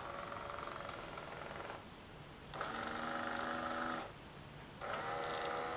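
Wesco Chicken Run animated alarm clock playing a repeated sound through its small speaker, three times, each lasting about a second and a half with short pauses between.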